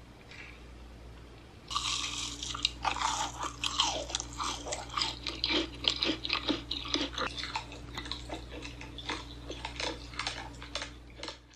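Mukbang ASMR eating sounds: close, crisp crunching and chewing of pink desserts, a dense run of crackly bites starting about two seconds in.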